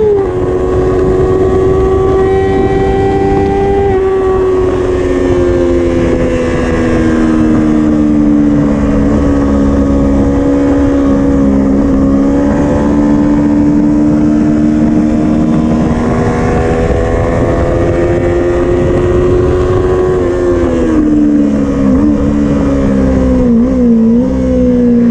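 Yamaha YZF-R25's 250 cc parallel-twin engine with an Akrapovič exhaust, heard from the rider's seat while lapping at speed. The engine note holds steady, falls slowly as the bike slows into a corner, then rises again. Near the end it dips and recovers several times in quick succession as the rider shifts gear, all over a steady rush of wind.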